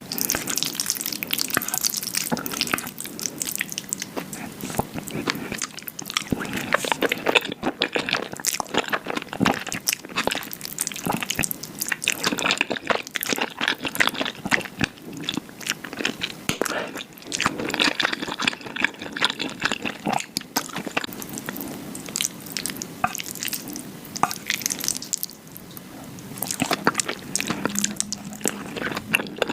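Close-miked eating of black bean sauce noodles (jjajangmyeon): wet, sticky mouth sounds of slurping and chewing, a dense run of irregular smacks and clicks.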